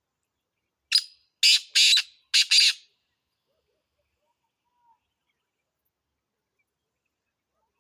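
Black francolin calling: a short phrase of five harsh, grating notes, one alone and then two quick pairs, over about two seconds.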